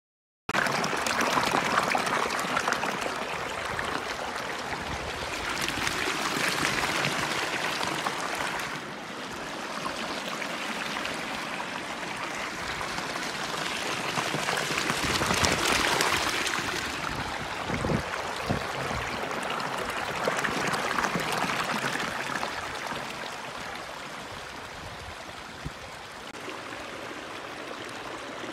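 A small mountain stream running and splashing over rocks, close to the microphone. It cuts in suddenly about half a second in, and the rush swells and eases several times.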